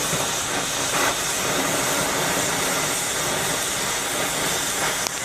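Gas torch flame hissing steadily while it heats a pinion bearing to expand it for fitting onto the shaft. The hiss drops away abruptly near the end.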